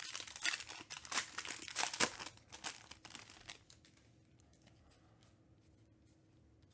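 Plastic trading-card pack wrapper being torn open and crinkled by hand, a dense crackling that stops about three and a half seconds in.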